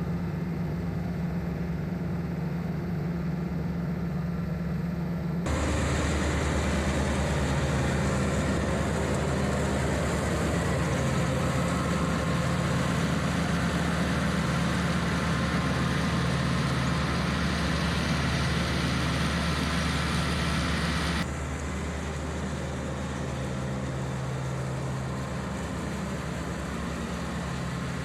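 John Deere 110 tractor loader backhoe's diesel engine running steadily while driving a 72-inch belt-driven King Kutter finish mower through the PTO. About five seconds in the sound turns suddenly louder and brighter, and it drops back again about seven seconds before the end.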